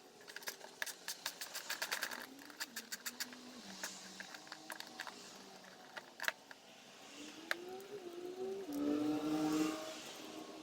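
A quick run of sharp metal clicks and rattles as parts of the exhaust are worked loose, then a vehicle engine heard rising and falling in pitch, loudest near the end.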